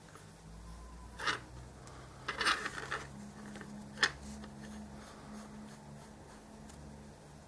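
Small handling noises on a tabletop while a paintbrush and a small die-cast model chassis are worked: a short scrape about a second in, a cluster of light scrapes and taps around two and a half seconds, and one sharp tap near four seconds. A faint steady low hum runs underneath.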